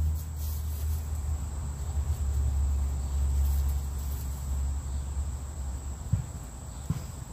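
Steady high-pitched drone of insects over a low rumble on the microphone, with two faint clicks near the end.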